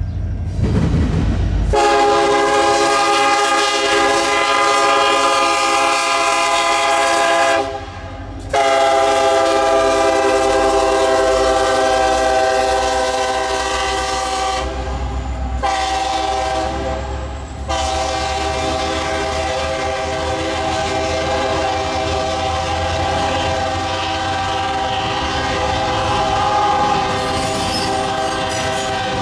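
Norfolk Southern diesel locomotive's multi-note air horn blowing the grade-crossing signal: two long blasts, a short one and a last long one, a chord of several steady notes. Under it the passing double-stack intermodal train rumbles and its wheels click over the rail joints.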